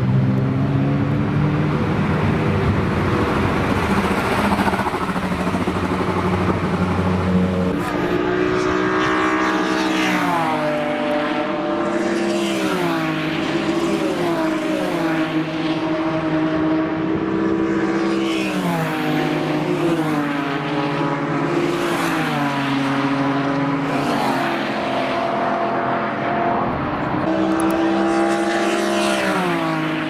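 Race car engine running at steady revs for the first several seconds. About eight seconds in, a BMW E46 M3 race car takes over, accelerating away under hard throttle, its engine note climbing and then dropping sharply at each upshift, every two to three seconds.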